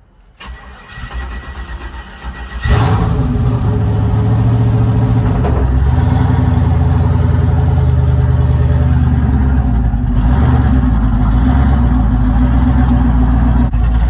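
The truck's LS V8 cranks on the starter for about two and a half seconds, then catches and runs loudly and steadily, heard from inside the cab.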